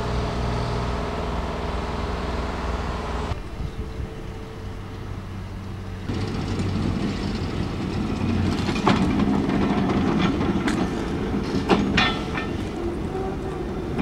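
Railway carriages rolling slowly over the track with a low rumble. In the second half comes a run of sharp metal clanks from the running gear and couplings, loudest about twelve seconds in. A steady low hum at the start cuts off abruptly about three seconds in.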